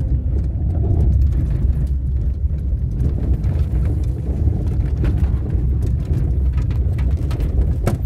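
A car's steady low rumble.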